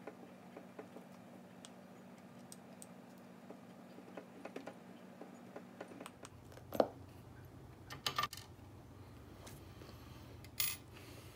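Small clicks and taps of an RC crawler wheel being taken apart by hand as its metal bead-lock ring comes off, with a sharper knock about seven seconds in, a cluster of metallic clinks about a second later, and a short rattle near the end.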